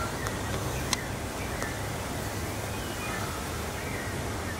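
Night-time city ambience: a steady low hum of distant city noise, with a few faint short chirps and a single sharp click about a second in.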